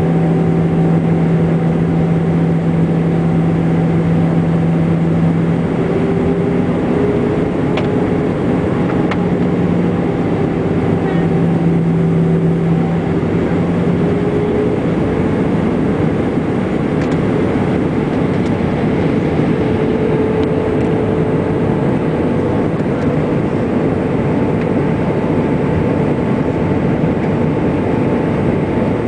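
Airbus A319 cabin noise on approach: a steady roar of jet engines and airflow heard from inside the cabin, with several humming engine tones. The tones shift slightly in pitch, and the lowest hum drops out about halfway through.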